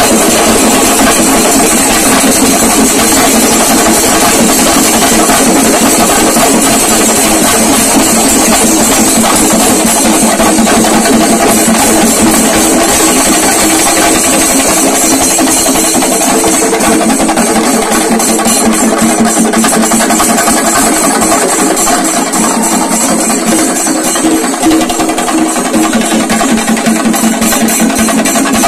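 A Kerala chenda melam ensemble: many chenda drums beaten with sticks in dense, loud, unbroken drumming as two troupes play against each other.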